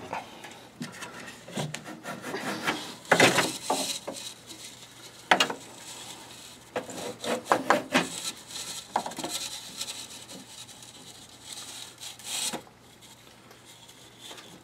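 Handling noise from an IBC boiler's combustion blower and burner assembly being unplugged and lifted out of the cabinet: irregular scraping, rubbing and knocks of metal parts, with sharper knocks about three seconds in, about five seconds in and near the end.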